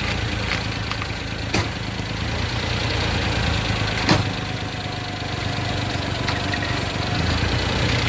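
Suzuki Jimny's engine idling steadily, with two sharp clunks from the chassis, about one and a half seconds in and about four seconds in. The clunk is the noise the owner traces to a twisting leaf-spring shackle whose bushing needs replacing.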